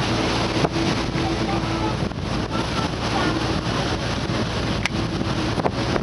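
Steady running noise of a passenger motor ship under way, with wind buffeting the microphone and a faint low engine hum underneath.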